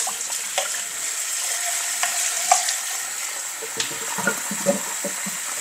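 Kitchen tap running into a plastic measuring jug as it is rinsed out: a steady hiss of water, with a few light knocks and splashes as the jug is turned under the stream.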